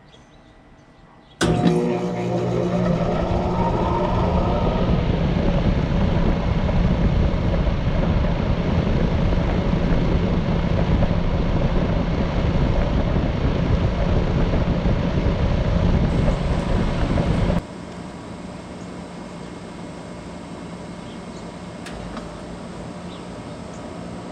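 Heat pump outdoor units (American Standard Silver 14) starting up in heat mode on a frosty morning. The compressor and fan kick on suddenly about a second and a half in, with a rising whine as they spin up, then run loud. About seventeen seconds in the level drops abruptly to a quieter, steady running hum.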